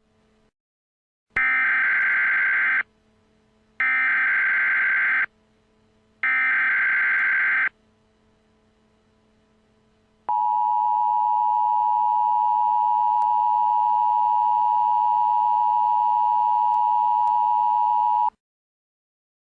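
Emergency Alert System header: three short bursts of electronic data tones, then the two-tone attention signal held steady for about eight seconds. Together they mark the start of an emergency alert, here a severe thunderstorm warning.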